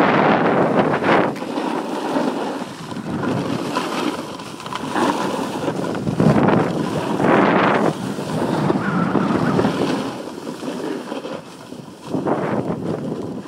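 Wind rushing over the microphone and snow hissing and scraping under a snowboard as the rider slides down the slope, in surges that swell and ease.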